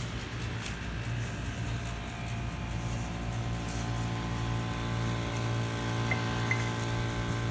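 A motor running steadily, a constant hum of unchanging pitch.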